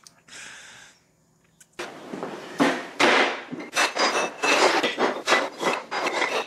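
Lengths of square steel tube set down and shuffled against each other on a steel welding table: a quick, irregular run of clanks and knocks that starts about two seconds in, after a brief hiss and a moment of silence.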